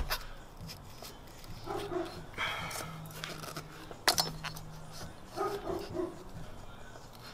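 A dog barking in short bursts of two or three, about two seconds in and again near the end. A sharp metallic clank about four seconds in, from the wrench and the metal oil filter housing cap, is the loudest sound.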